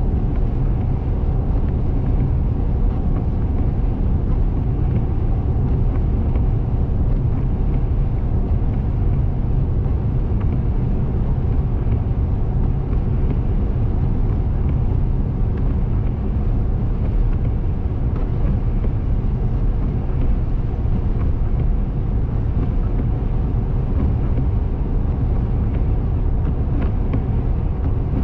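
Car driving at highway speed, a steady low rumble of tyres on the road and the engine running, unchanging throughout.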